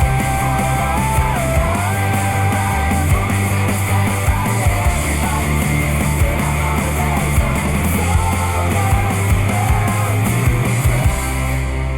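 Rock music played back through Bowers & Wilkins PX7 wireless headphones, with a steady drum beat under guitars and a held melodic line. About eleven seconds in the track ends and a quieter, softer piece begins.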